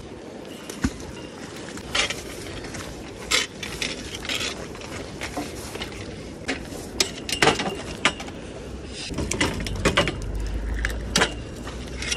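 Scattered metallic clinks, rattles and knocks as a fishing magnet's catch, a bicycle lock with the bicycle it belongs to, is pulled in and handled, with a low rumble about ten seconds in.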